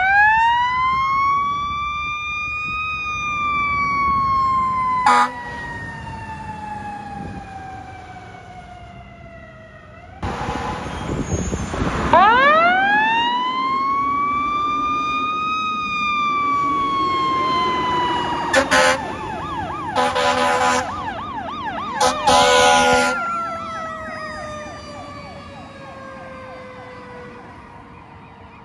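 Fire truck sirens as the apparatus leaves the station: a wailing siren winds up fast and slowly falls away, twice, with a long falling wail again near the end. Short horn blasts come about five seconds in and several more in the second half, along with a fast warbling yelp.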